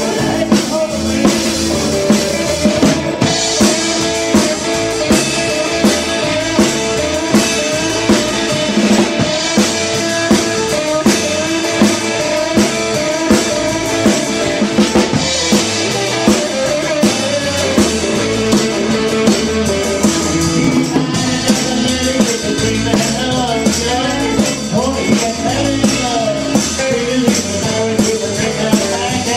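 Live rock and roll band playing: electric guitars over a steady drum beat.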